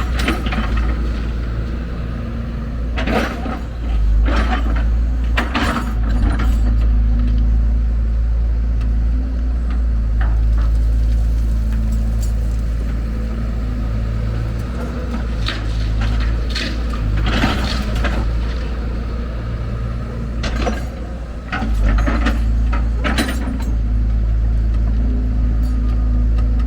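Hyundai R170W wheel excavator's diesel engine running steadily, with scattered clusters of sharp knocks and crashes from the loading work.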